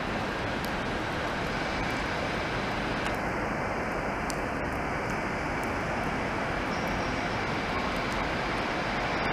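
Class 66 diesel-electric locomotive's two-stroke V12 engine running as it slowly approaches hauling a freight train, a steady noise that grows a little louder near the end.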